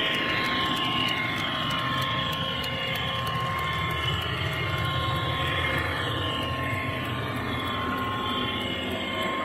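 Model spoil train running steadily along the track: a constant motor hum with a steady whine over it, higher whines that rise and fall, and a run of light regular clicks from the wheels on the rails.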